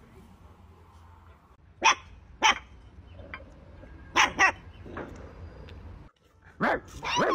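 A dog barking: two short barks about two seconds in and two more about four seconds in, each pair about half a second apart. Near the end a louder, longer sound begins.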